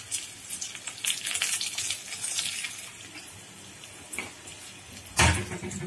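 Fresh curry leaves sizzling and crackling in hot oil in a small pan, with onion and dry red chillies, for a tempering. The spluttering dies down after about three seconds, and a loud knock comes near the end.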